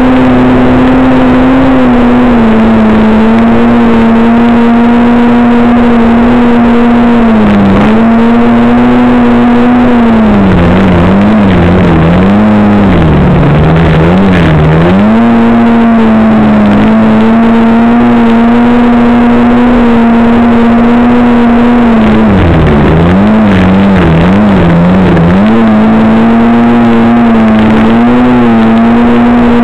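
Snowmobile engine running hard at a steady high pitch, dipping and wavering in pitch several times, first from about ten to fifteen seconds in and again from about twenty-two to twenty-six seconds in, before settling back to the steady note.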